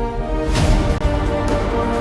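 Background music, with sustained notes and a fuller, louder section coming in about half a second in.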